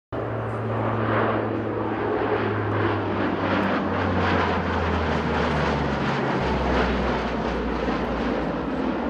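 Lockheed C-130 Hercules' four turboprop engines and propellers droning loudly on a low pass, with a deep propeller hum that drops in pitch about halfway through and again near the end as the aircraft goes by.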